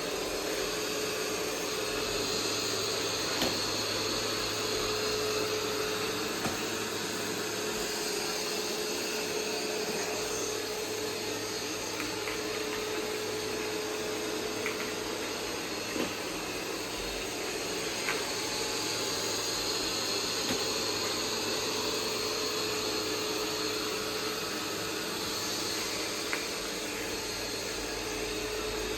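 iRobot Roomba 505 robot vacuum running: a steady motor-and-brush hum with a constant whine, and a few sharp clicks here and there as it works.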